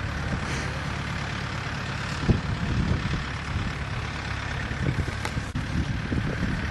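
Wind buffeting the camera microphone: a steady low rumble that wavers in strength, with a single bump a little over two seconds in.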